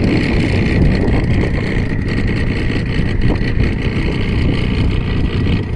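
A fishing boat's motor running steadily, with wind buffeting the microphone.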